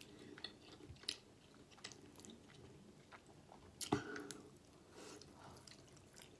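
Faint, close-miked chewing of creamy pasta: soft wet mouth clicks and smacks, with a louder click about four seconds in as another forkful goes into the mouth.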